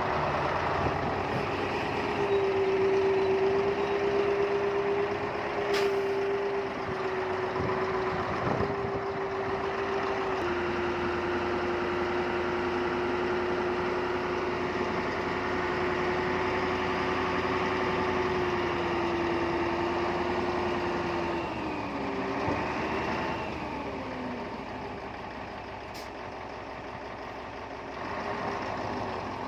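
Heavy earthmoving machine's diesel engine running steadily with a held whine; the whine wavers and drops away about 22 seconds in, and the engine sound eases.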